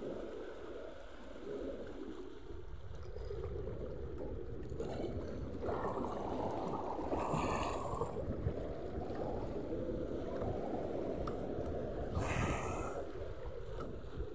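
Small sea waves lapping and sloshing against the shoreline rocks, with louder splashes about six and twelve seconds in. Wind rumbles on the microphone.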